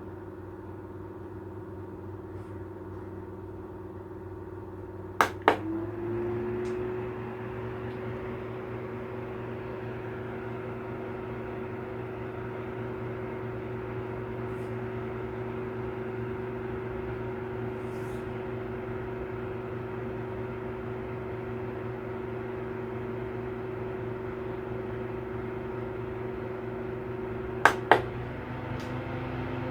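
VOGEL VOG-C600B rechargeable 6-inch circulator fan running with a steady motor hum. About five seconds in come two sharp clicks, and the hum glides up a little in pitch, as at a speed change; near the end two more clicks come, and the pitch shifts again.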